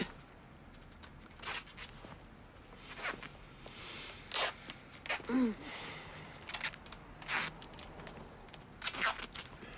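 Adhesive tape ripped off the roll in several short rasps as it is wound around a person's torso. A brief vocal murmur about five seconds in.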